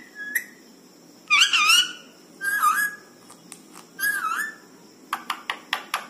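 Rose-ringed parakeet (Indian ringneck) giving a few whistled calls that bend in pitch, then a quick run of short sharp chirps near the end.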